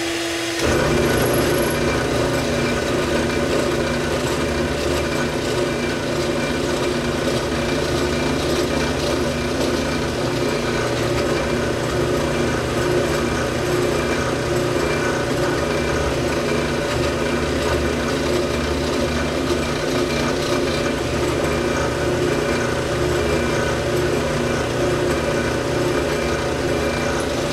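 Dust-collection vacuum and drill press running together while a hollow-chisel mortiser plunges into wood. The steady rushing noise comes up to full level about half a second in and holds.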